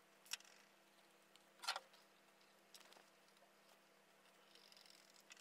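Near silence over a low steady hum, broken by a few faint clicks and taps from hands working the camera cable and the wooden bird box, the clearest about a second and a half in.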